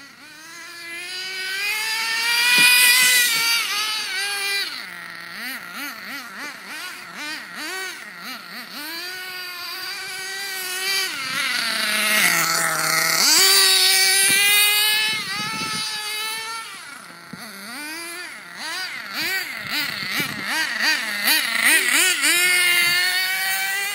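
Nitro engine of a Redcat Aftershock 3.5 RC buggy, revving hard, its high whine rising and falling over and over with the throttle. It is loudest at full revs a few seconds in and again around the middle.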